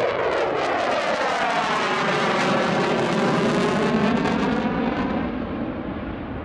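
Saab JAS 39C Gripen's single Volvo RM12 turbofan engine as the fighter passes, with a sweeping, phasing sound. The hissy top end fades about five seconds in as it climbs away.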